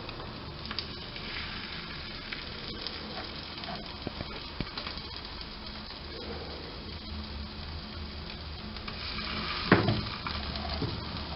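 Cottage cheese patties frying in butter in a hot non-stick frying pan, a steady sizzle with small scattered clicks. A single sharp knock stands out near the end.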